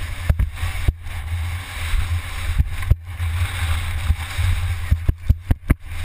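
Wind buffeting a helmet-mounted GoPro on a fast mountain bike descent, a steady rush with a deep rumble. Repeated knocks and rattles from the bike jolting over the dirt track, several in quick succession about five seconds in.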